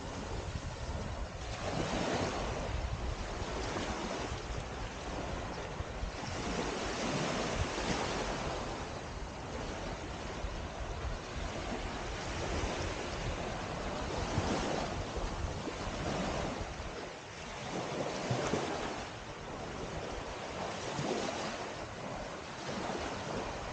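Small sea waves lapping and washing up on a sandy beach, swelling and fading every few seconds, with wind rumbling on the microphone.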